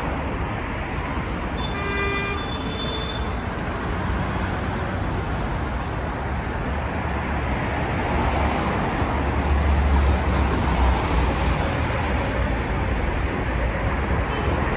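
City street traffic noise, with a vehicle horn sounding once for about a second, two seconds in. A heavy engine's low rumble swells louder around the middle and peaks near ten seconds.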